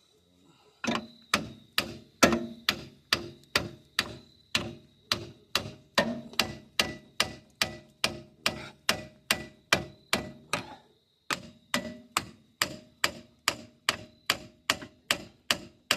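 A hand hammer beating steadily on the rusted front hub assembly of a 1986 Chevy K5 Blazer to knock it loose, about two ringing metal-on-metal blows a second. The blows break off once, briefly, about two-thirds of the way through.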